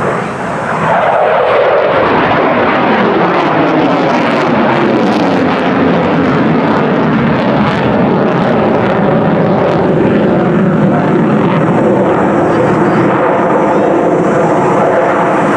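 Lockheed Martin F-35 Lightning II's single Pratt & Whitney F135 jet engine passing overhead. It is loud, and its pitch falls steadily over the first several seconds as the jet goes by and away, then settles into a steady rumbling noise.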